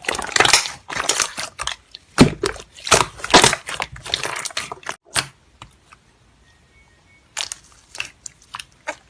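Slime being squeezed and pressed by hand, giving a dense run of sharp crackles and pops for about five seconds, then a short pause and a few scattered pops.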